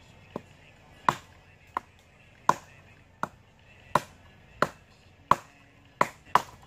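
A short-handled axe chopping into a dead log, about ten sharp, separate strokes at a steady pace of roughly one every 0.7 seconds, with two strokes close together near the end.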